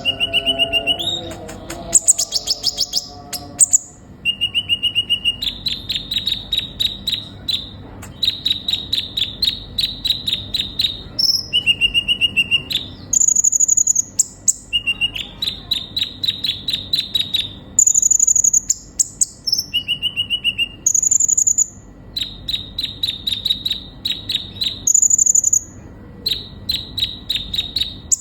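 Kolibri ninja sunbird singing: bouts of fast, high, buzzy trills, about ten notes a second, each bout lasting a second or two. They alternate with short, thin, steady whistled notes, some higher and some lower than the trills.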